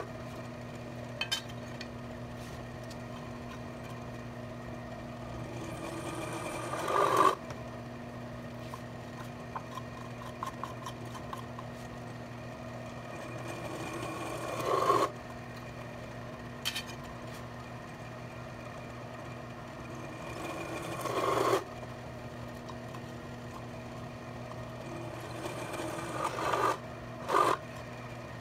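Milling machine spindle running steadily while a center drill cuts through 1/8-inch steel angle iron into a wooden backing block. The grinding cut comes four times, about every seven seconds, each building for a second or two and stopping abruptly as the bit goes through. Short clicks between the cuts come as the angle iron is moved along.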